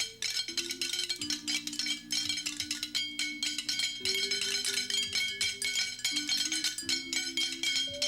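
Soundtrack music: quick, clicking percussion over held low chords that change every second or so, with bright bell-like notes on top.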